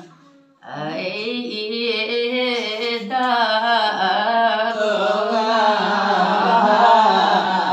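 Voices singing a traditional Limbu song in a slow chant with wavering pitch. It breaks off briefly just after the start, then resumes and grows fuller and louder about three seconds in.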